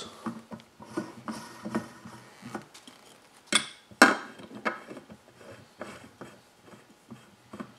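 Two spin-on fuel filter canisters being handled and screwed loosely by hand onto an AirDog 4G lift pump's filter heads: scattered light clicks and knocks of the canisters against the metal housing, with two sharper clunks a little over three and a half seconds in.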